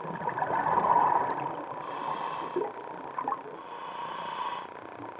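Scuba diver breathing underwater through a regulator: a burst of exhaled bubbles gurgling and crackling in the first second or so, then two hissing breaths through the regulator. A faint steady whine runs underneath.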